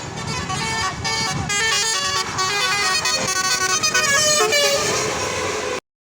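A bus's Basuri 'telolet' multi-tone musical horn playing a quick tune of stepped notes over low traffic rumble, then cutting off suddenly near the end.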